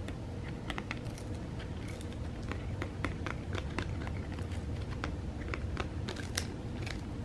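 A cat chewing a dried cod skin: irregular crisp crunching clicks, several a second, as its teeth bite into the dried fish skin.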